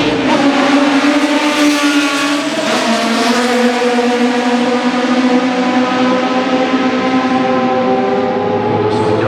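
Group C sports-prototype race car engine running loud at high revs on track, its pitch dropping a little about two and a half seconds in, then holding fairly steady.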